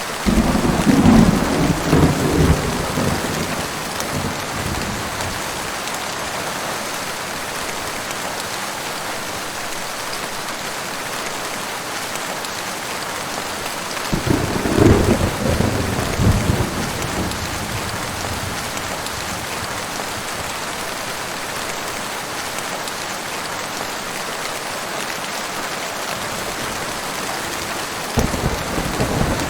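Heavy rain falling with a steady hiss, with rolling thunder rumbling over it three times: right at the start, about halfway through, and again near the end.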